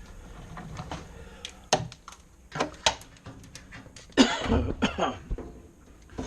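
Scattered clicks and knocks of things being handled, with one louder, rough burst about four seconds in that may be a cough.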